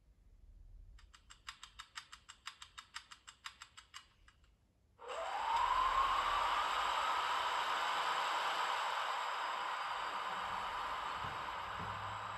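Recorded locomotive sound effects from the model's ESU sound decoder loudspeaker: a rapid run of clicks, about six a second, for some three seconds. Then a sudden steady rushing hiss starts, with a tone that rises in pitch, settles and slowly fades.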